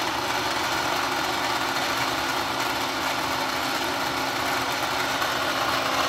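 Small electric motor of a toy painting-and-pottery wheel running steadily, a constant hum with a thin whine as the paint disc spins.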